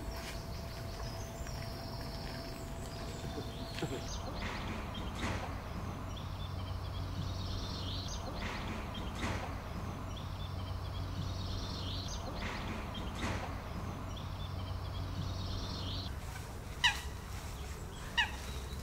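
Birds calling: a high call repeats every four to five seconds, and two sharp, loud chirps come near the end.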